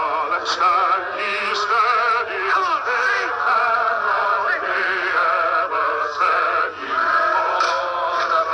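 A song playing: singing with a wide vibrato over instrumental accompaniment, holding long notes.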